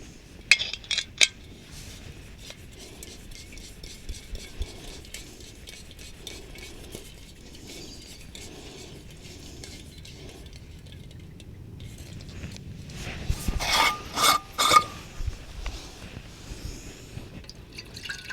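Metal camping cookware being handled: a couple of sharp clinks near the start, small scrapes and rubs, then a cluster of louder ringing metal clatters about three-quarters of the way through.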